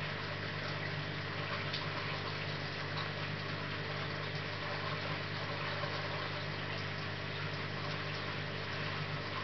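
Aquarium pump running: a steady low hum with an even hiss of moving water.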